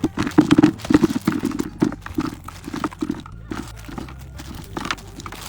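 Cherries being sorted by hand, knocking and rolling against each other and their container in a quick, irregular clatter that thins out after about three seconds.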